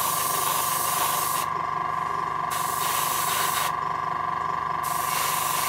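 Small AS186 airbrush compressor kicking in and running with a steady, rhythmic pulsing hum, which sounds like a Model T Ford. Over it the airbrush hisses as paint is sprayed, stopping twice as the trigger is let off.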